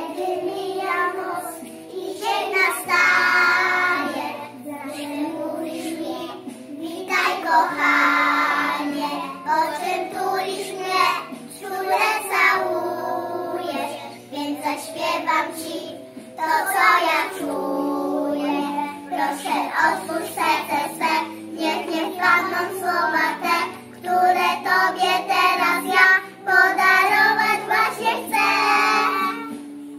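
A group of young children singing a song together in unison, over a steady instrumental accompaniment.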